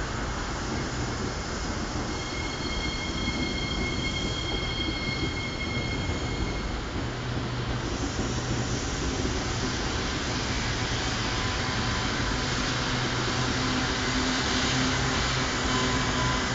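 SMRT MRT train running past on an elevated track, a steady rumbling rush of wheels on rail. From about two to seven seconds in, a high-pitched whine of several steady tones rides over it, then a low hum as the train carries on.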